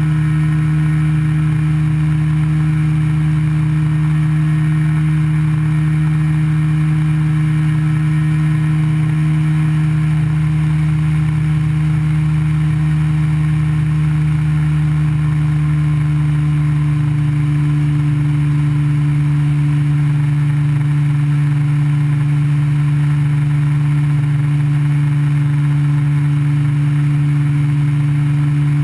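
Ultralight aircraft engine and propeller droning steadily in flight, heard from the open cockpit; the note shifts slightly lower a little past halfway through.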